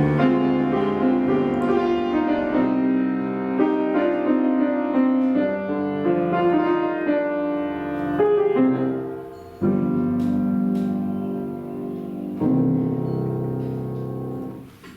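Piano music: a moving run of notes over chords, settling into long held chords in the second half and stopping just at the close.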